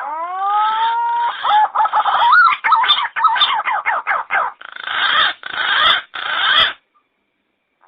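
Green pigeon (punai) calls used as a trapping lure: one long rising whistle, then a rapid run of warbling, bouncing whistled notes that grows denser and cuts off suddenly near the end.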